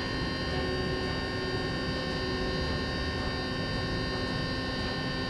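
Electric motor and propeller of a Mini Talon model plane running at steady cruise throttle, a constant whine of several steady tones over airflow noise, picked up by the onboard camera's microphone.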